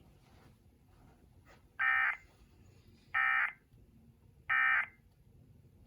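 Emergency Alert System end-of-message (EOM) data bursts over broadcast radio: three short, identical digital screeches about a second apart. They signal the end of the alert.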